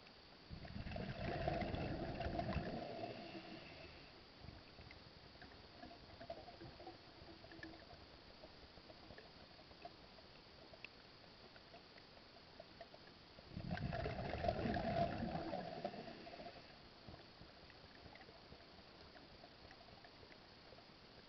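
Underwater bubbling from a diver's exhaled breath, heard as two loud gurgling bursts of about three seconds each, some thirteen seconds apart, with faint clicks in between.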